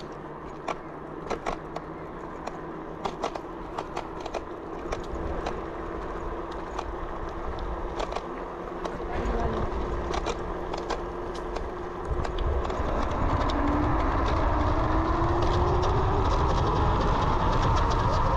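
Kaabo Wolf Warrior electric scooter's 60 V hub motors, driven by a Flipsky FT85BD controller, whining under way. Through the first part there are scattered clicks and rattles. From about twelve seconds in, the motor whine rises steadily in pitch as the scooter speeds up, with wind rumble on the microphone growing louder.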